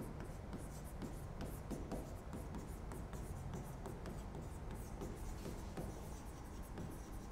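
Marker writing on a whiteboard: a quick run of short scratches and taps as the letters are written.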